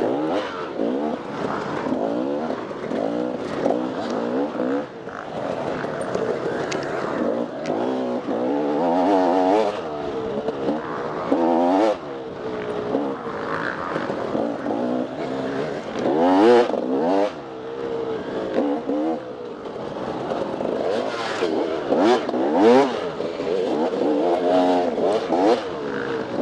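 Off-road dirt bike engine racing over a trail, its revs rising and falling constantly with throttle and gear changes, with clattering knocks from the bike over rough ground, loudest about two-thirds of the way through.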